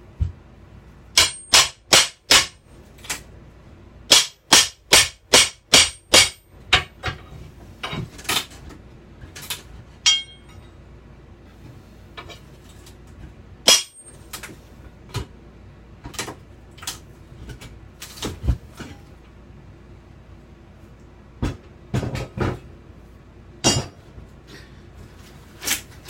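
Hammer blows during the teardown of a travel trailer's interior: four quick strikes, then a fast run of about nine, then scattered single blows, some with a short metallic ring.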